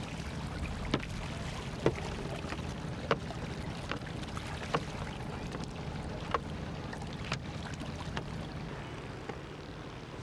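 Small boat moving on a river: a steady low hum with sharp knocks roughly once a second.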